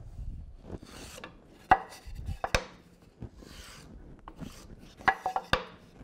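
A wooden board and hand tools handled on a steel bandsaw table: a few sharp knocks and short scraping strokes, as a board is scored with a wheel marking gauge.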